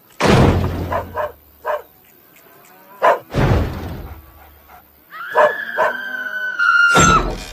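Animated-film sound effects: a heavy thud as a balloon-fat cartoon cow hits a wooden barn wall, a second thud about three seconds later, then a small dog yipping and whining, and a third loud thud near the end.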